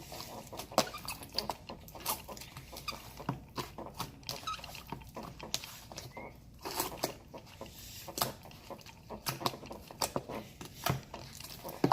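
Soft, melted slime being kneaded by hand with activator worked in, giving irregular sticky clicks and small pops.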